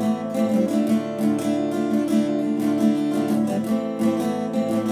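Acoustic guitar strummed in a steady rhythm, playing the instrumental passage of a song between sung verses.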